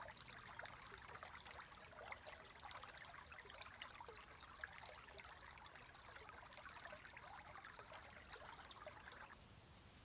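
Forest stream trickling and bubbling, a dense patter of small splashes. About nine seconds in the trickling drops away suddenly to a fainter, smoother hiss.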